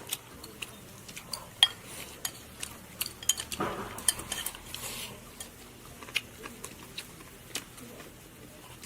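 Scattered light clicks and clinks of eating utensils against plates and bowls at a meal table, with one sharper knock about a second and a half in.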